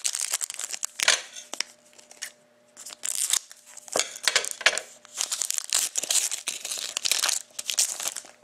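Foil wrapper of a trading card pack being torn open and crinkled in the hands, in irregular rustling bursts that get busier over the second half.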